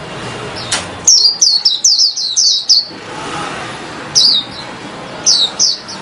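A caged white-eye (pleci) singing loudly in rapid runs of high, downward-sweeping chirps, the excited song that keepers call 'teler'. A fast run of about ten notes comes in the first half, and shorter bursts of two or three notes follow after brief pauses.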